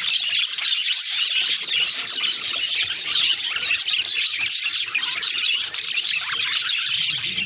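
Budgerigars chattering and warbling: a continuous, dense stream of quick high-pitched chirps and squeaks.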